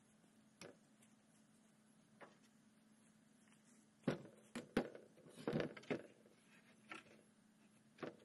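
Weathered wooden boards knocking and clattering as they are handled and laid on other boards, with a cluster of knocks about four to six seconds in and a few single taps before and after.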